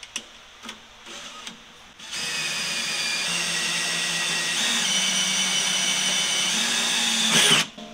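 Electric hand drill boring a hole through aluminum sheet, starting about two seconds in after a few light clicks and running steadily until it stops shortly before the end. Its pitch steps up slightly a few times and rises just before it stops.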